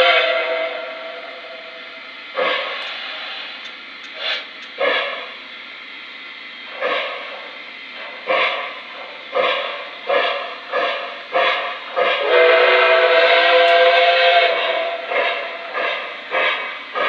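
An S gauge Lionel Flyer Berkshire steam locomotive's sound system plays a steam whistle blast that dies away. Then come steam chuffs, slow and spaced at first and quickening to about two a second as the engine gets under way. A second whistle blast sounds about twelve seconds in.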